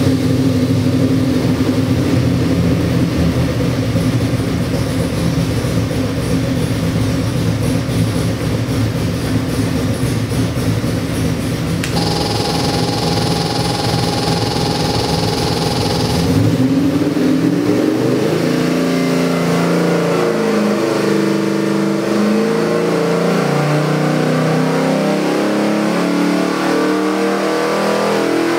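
Ford 427 Windsor stroker V8 with Holley multi-port fuel injection running on an engine dyno. It idles at around 800 rpm for about sixteen seconds, with a higher whine joining for a few seconds near the middle. Then it makes a full-power dyno pull, its pitch climbing steadily to near 5,000 rpm by the end.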